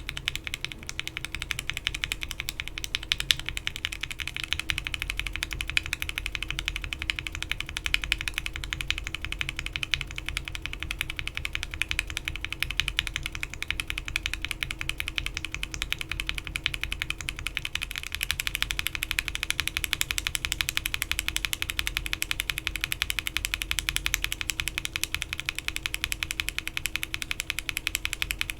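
Fast typing on a mechanical keyboard with lubed Alpaca-based linear frankenswitches (swapped stems and top housings, 67g long springs) under PBT keycaps on an FR4 plate: a dense, continuous run of clacking keystrokes. About 18 seconds in, the build changes from Cherry stem and top to NK Cream stem and top, and the clacks turn a little brighter and louder.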